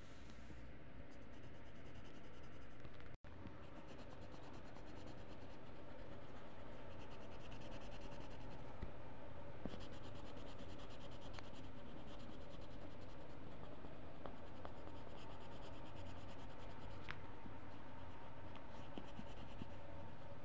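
Pencil scratching on paper as a drawing is outlined, over a steady background hiss. The sound drops out for a moment about three seconds in.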